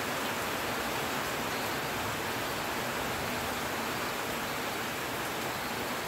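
Heavy rain falling steadily, an even, unbroken hiss.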